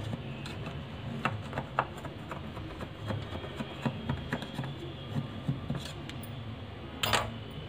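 A knife scraping softly around the inside edge of a metal cake tin to loosen the baked cake, with scattered light clicks and the clink of glass bangles. A louder brief scuff comes near the end.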